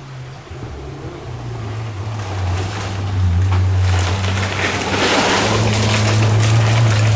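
Mazda 2 Demio rally car with a 1.5-litre front-wheel-drive engine, running hard on a gravel stage and growing louder as it approaches. The spray and crunch of gravel under its tyres rises with it, loudest in the second half.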